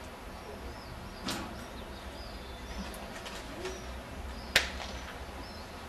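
Two sharp smacks of the helper's stick striking the dog on the bite sleeve, a weak one a little over a second in and a louder one about four and a half seconds in. Small birds chirp in quick high notes.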